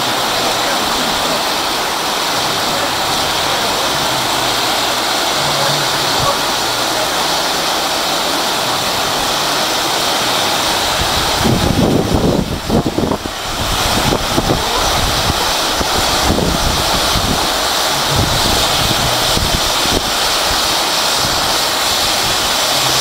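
Several pyrotechnic spark fountains (gerbs) hissing steadily in one long, even rush. About halfway through there are a few seconds of louder, uneven low rumbling.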